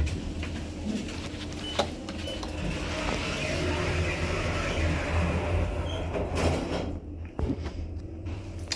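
Schindler 3300 elevator's automatic sliding doors moving, with a sharp click about two seconds in and a steady low hum underneath.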